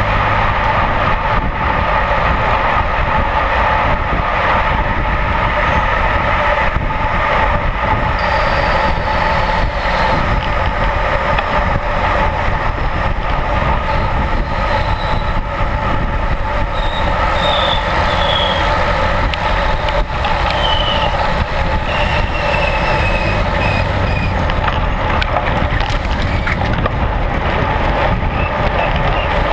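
Steady rumbling wind and road noise on a camera mounted on a road bike riding in a pack of racing cyclists, with a few faint high chirps in the middle.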